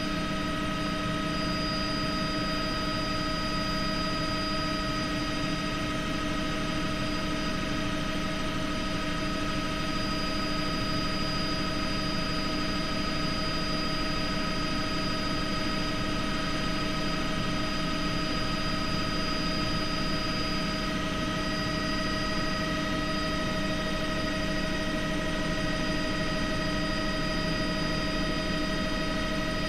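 Helicopter in steady flight, heard from inside the cabin: a constant drone of engine and rotor with several steady whining tones over it, unchanging throughout.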